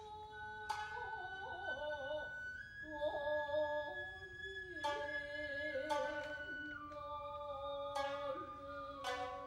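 Japanese classical dance accompaniment: a singer holding long notes that waver and step slowly in pitch, over about half a dozen sharp plucked shamisen strokes.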